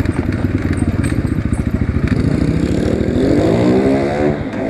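Asian Beast 250 dirt bike engine running through its loud exhaust at low revs with a rapid beat, then revving up about three seconds in and easing off just before the end.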